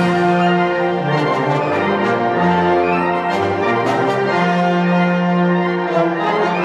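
Military concert band (symphonic wind band) playing music led by the brass, with sustained chords over held low notes. A few short percussion strokes come about four and six seconds in.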